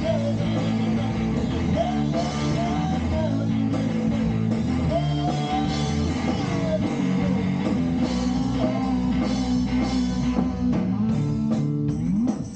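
A rock band playing an instrumental passage: electric guitar holding and bending notes over bass and drum kit.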